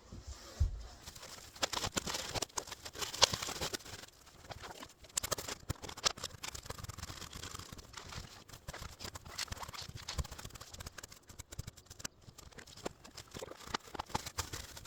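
A blade cutting through corrugated cardboard: a dense, irregular run of short scratchy crackles and clicks as it saws the fireplace opening into a box.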